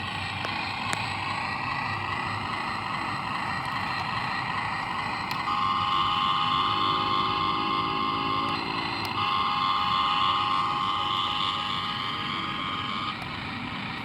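Radio-controlled model excavator's motor whining as the machine works. A softer whirr turns into a louder, steady whine about five seconds in; the whine drops out briefly near the middle and stops shortly before the end.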